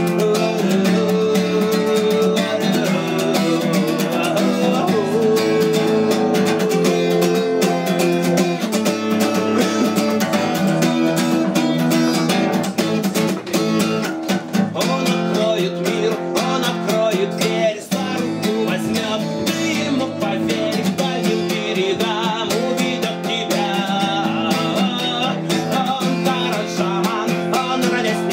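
Acoustic guitar strummed steadily in an instrumental passage between sung verses of a song.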